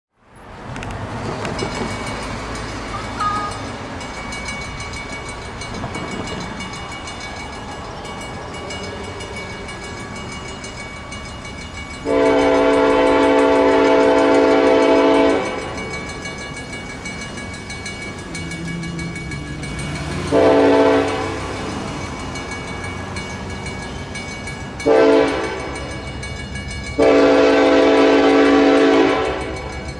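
Approaching diesel locomotive's Nathan K5LLA five-chime air horn sounding the grade-crossing signal: a long blast, two shorter ones and a final long blast, over the steady rumble of the oncoming train.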